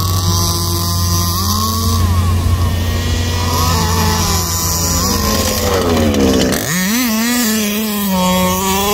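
Small two-stroke petrol engines of 1/5-scale RC cars, a teal buggy and a desert truck, running and revving with a buzzing, chainsaw-like note. About six and a half seconds in, one engine winds up sharply and holds high revs as the teal buggy, fitted with a new clutch spring, launches hard past close by.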